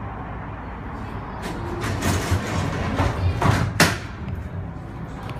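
Sliding doors of a Wuppertal Schwebebahn car: about two seconds of hissing and rattling, ending in one sharp knock nearly four seconds in, over the car's steady low rumble.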